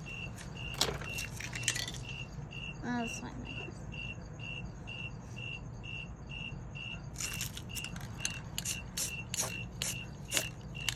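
A cricket chirping steadily, about three even chirps a second on one high note. In the last few seconds, a run of light clicks and taps.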